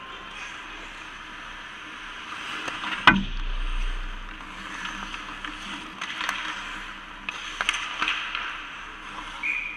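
Ice hockey play close to the goal: skates scraping the ice, with a sharp hard crack about three seconds in and several lighter clacks of sticks and puck later. A referee's whistle starts near the end, stopping play.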